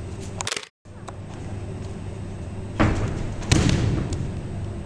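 A person thrown down onto a sports-hall mat: two heavy thuds under a second apart, the second the loudest, echoing in the large hall.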